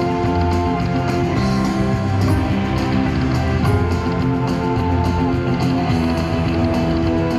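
Buffalo Cash slot machine playing its free-games bonus music, a steady looping tune, as the free spins run one after another.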